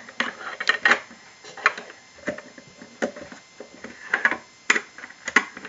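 Small plastic toy parts being handled: a string of irregular light clicks and taps, about a dozen over several seconds.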